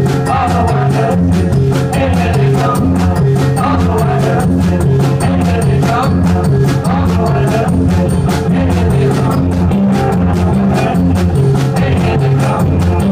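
Live rock duo of electric guitar and drum kit playing an instrumental passage: strummed guitar notes moving over a steady, busy drum beat at an even, loud level.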